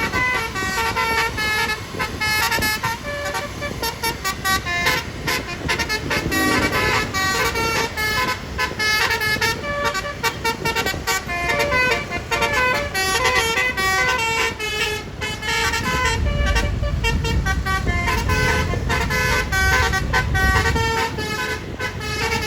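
A bus's Basuri telolet horn playing a quick melody of short stepped notes over and over. A low rumble of the passing bus joins in during the later seconds.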